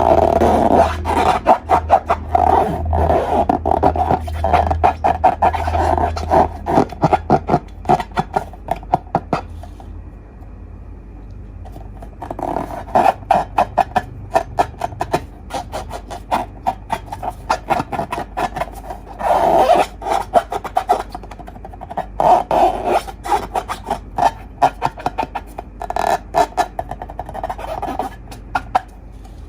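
Hands squishing and stretching slime, giving rapid sticky clicks and squelches in bursts, with a quieter stretch about ten seconds in.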